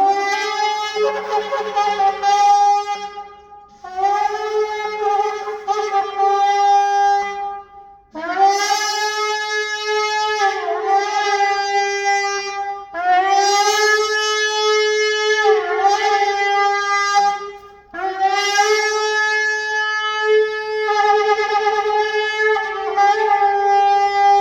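Gemsbok (oryx) horn shofar blown in five long blasts, each scooping up into a steady, brassy tone, with short breaks for breath between them and a few brief dips in pitch within the longer blasts.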